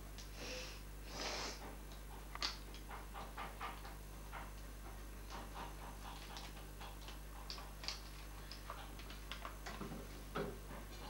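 Scattered light clicks and taps of felt-tip markers being picked through and handled on a wooden table, with a couple of short rustles near the start. A steady low hum runs underneath.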